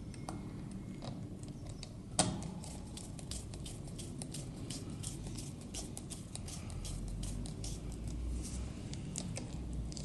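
Screwdriver working a screw on a motor terminal block, clamping the live wire: one sharp click about two seconds in, then a run of many small quick clicks.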